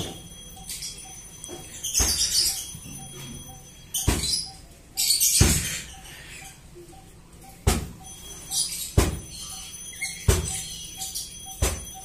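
Wire-mesh bird cage rattling and clanking as it is handled by hand: about seven sharp metallic knocks at uneven intervals, each with a jingling rattle of the wire mesh.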